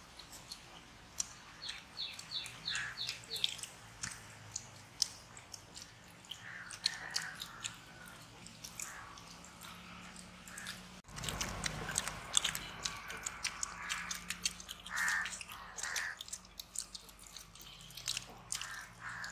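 Children eating gulab jamun: chewing and slurping the syrup from steel cups, with many small clicks. A bird calls in the background, most clearly in a quick run of short calls about two seconds in.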